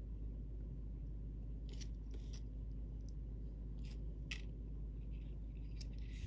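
Faint, short scratchy ticks, about five of them, from fingers handling braided fishing line and a hook, over a steady low background hum.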